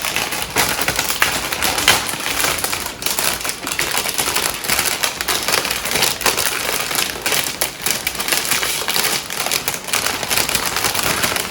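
Rustling and crinkling of packing material as plants are unwrapped from a shipping box: a dense stream of small crackles and rustles.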